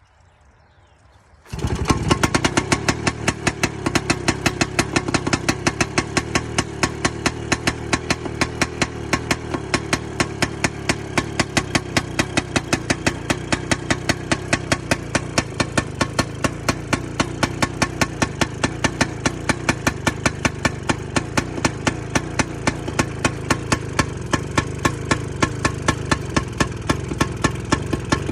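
The engine of a 1960 crawler tractor comes in suddenly about a second and a half in and keeps up a loud, rapid, even beat.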